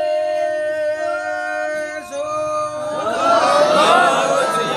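Sikh congregation singing a devotional chant together: long held notes at first, then many voices come in louder, with moving pitch, about three seconds in.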